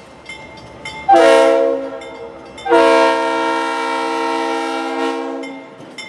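Diesel locomotive air horn sounding a short blast and then a long one of nearly three seconds, several tones sounding together.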